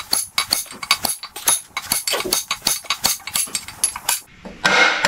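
Hammer striking a cut-up piece of pipe in a rapid run of sharp metallic blows with a high ring, driving an old wet cylinder liner out of a John Deere 3130 engine block. The blows stop about four seconds in.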